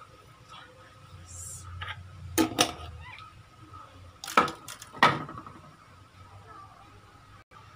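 Metal spoon clinking against dishes while sugar is spooned out: two sharp clinks about two and a half seconds in, then three more about four to five seconds in.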